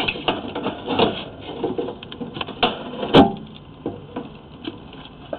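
Irregular clicking and knocking as a sewer inspection camera and its push cable are pulled back out through the drain pipe, with one sharp loud knock about three seconds in.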